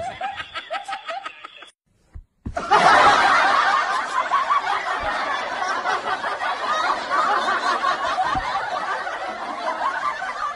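A group of people laughing and chuckling together, many voices overlapping in a dense, steady laugh. It starts after a brief silent cut about two seconds in.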